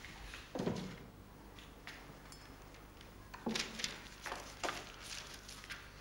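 A low thud about half a second in, then a run of short knocks and rustles over the second half: footsteps on a stone floor and a small book or paper being handled.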